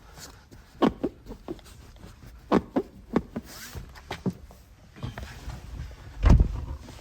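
Kia Rio X seat side bolster creaking as it is pressed by hand: a series of short squeaks, the foam rubbing against the seat's metal frame, with a low thump about six seconds in. The owner puts the creak down to the cold seat and a missing fabric liner between the foam and the metal frame.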